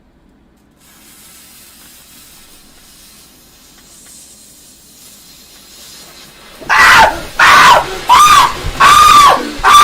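A lit firework hissing faintly for several seconds, then breaking into loud, high-pitched squeals that rise and fall in pitch, repeating evenly about once every 0.7 s.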